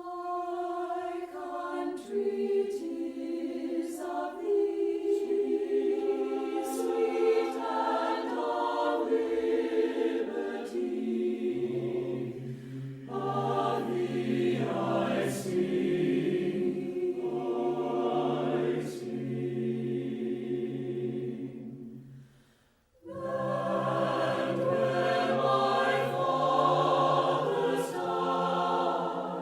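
Background music: a choir singing sustained, slow-moving chords, with a lower bass part joining about twelve seconds in and a short pause a little past twenty seconds before the singing resumes.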